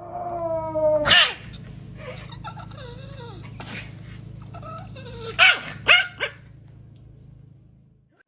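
A dog whining with a falling pitch, then giving a sharp bark about a second in, with quieter whimpers and three more quick barks between five and six seconds in. A steady low hum runs underneath.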